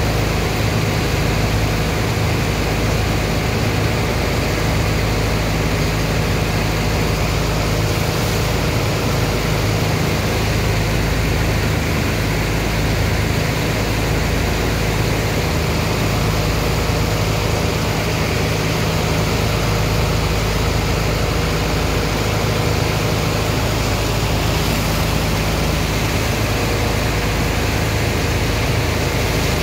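An engine running steadily under the steady rush and splash of water and sand slurry gushing from a discharge pipe and hoses into a barge's steel hold.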